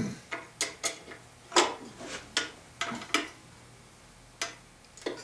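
Small steel tools clinking: a transfer punch and socket extension being handled and set into the motor flange's bolt holes. About ten short, light metallic clicks come at irregular intervals, the loudest about a second and a half in.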